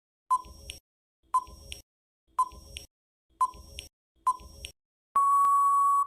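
Quiz countdown timer sound effect: five short beeps about a second apart, then one longer steady beep near the end as time runs out.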